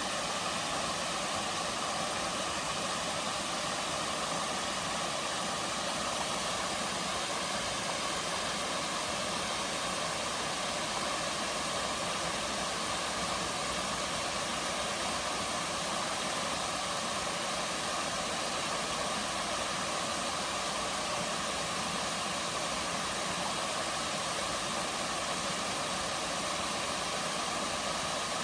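Waterfall: water falling into a pool in a steady, unbroken rush that does not change.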